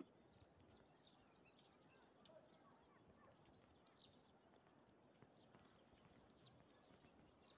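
Near silence: faint open-air ambience with a few faint, short high chirps scattered through it.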